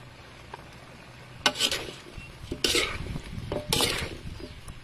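Fish and chopped vegetables being stirred and turned in a pan with a cooking utensil. Three scraping, clattering strokes start about a second and a half in.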